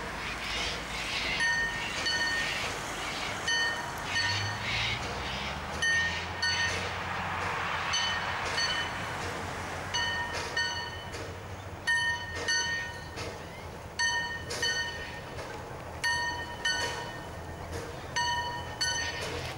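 Climax geared steam locomotive working a train across a curved timber trestle: a steady running rumble and exhaust, broken by short, high ringing squeals that recur in ones and twos every second or so.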